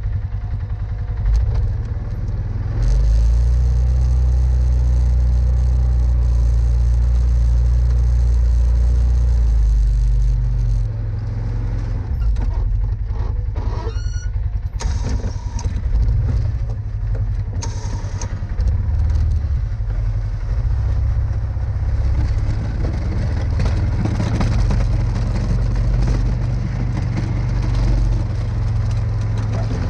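Polaris Sportsman 570 ATV's single-cylinder engine running while the ATV drives and pushes snow with a front plow blade. The engine holds a steady, loud note for several seconds, then rises and falls with the throttle.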